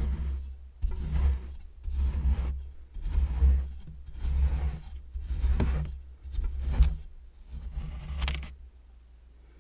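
A metal tool (a circular saw blade or cheese grater) scraping and cutting through kinetic sand in about eight strokes, roughly one a second. Each stroke has a low thump, and the strokes stop shortly before the end.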